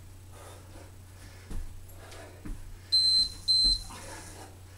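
Two short, high electronic beeps about three seconds in, each about a third of a second long. Under them are a few dull thuds of a person doing floor burpees on carpet, over a steady low hum.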